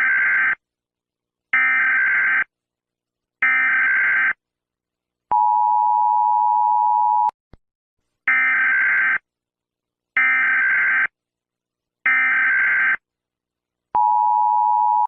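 Emergency Alert System tones: three roughly one-second buzzy digital data bursts, then a two-second two-note attention tone, then three more data bursts, and the attention tone starting again near the end. These are the signals that open an emergency broadcast alert.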